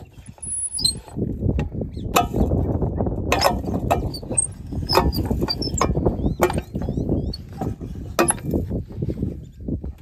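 Machinery rattling, with repeated sharp metallic clicks and clinks over an uneven low rumble.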